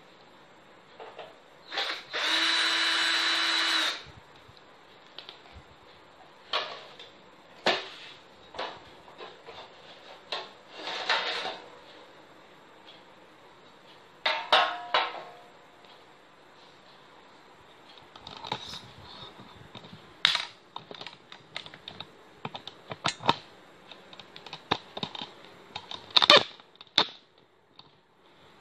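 Power drill-driver whirring as it backs screws out of a power amplifier's casing: one run of about two seconds near the start and shorter runs midway. Sharp clicks and rattles of screws and metal panels being handled come in between.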